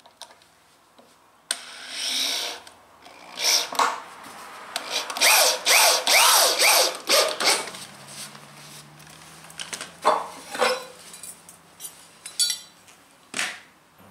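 Corded handheld power tool cutting into a pressure-treated pine bench board, run in short bursts. A longer stretch in the middle has the motor's pitch rising and dipping, followed by a few brief bursts near the end.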